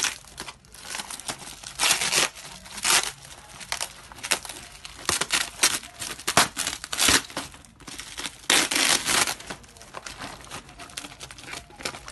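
Plastic bags crinkling and rustling as they are handled, in irregular bursts, the loudest stretch near the end.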